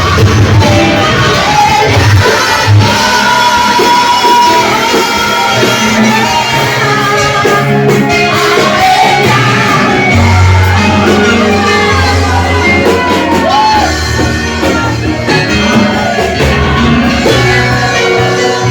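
Loud live rock music by a guitar, bass and drums power trio, with shouted singing over sustained bass notes.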